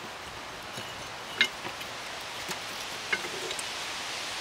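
Two light clicks from the old brake pad being worked out of a rear brake caliper, about a second and a half in and again about three seconds in, over a steady background hiss.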